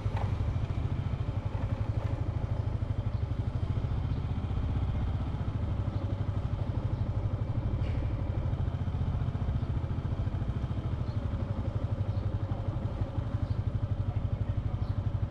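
Motorbike engine running steadily while riding, a continuous low rumble.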